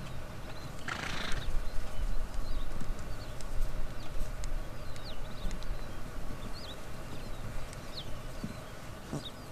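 Plains zebras close by, one giving a short breathy snort about a second in, over a steady low rumble with many short high chirps scattered throughout.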